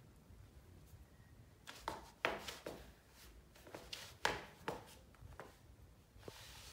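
Footsteps of slide sandals on a tiled floor: a string of irregular sharp slaps and taps, starting about two seconds in.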